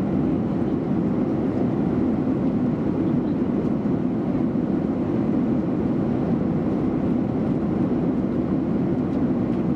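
Airliner cabin noise in cruise flight: the steady, even rush of the engines and airflow heard inside the cabin, deep and unchanging.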